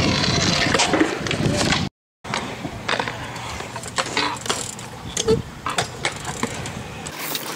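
Stunt scooter riding on a concrete skatepark: wheels rolling with loud wind noise on the microphone, cut off by a brief silence about two seconds in. After that come scattered clicks and knocks of the scooter's wheels and deck on concrete, with one sharper knock past the middle.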